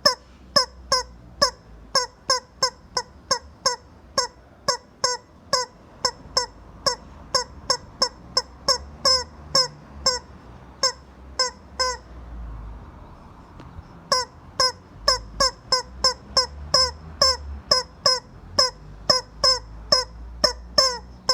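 Rubber chicken squeeze toy squawking over and over, about three short squawks a second, each dropping in pitch at its end. The squawking stops for about two seconds midway, then starts again.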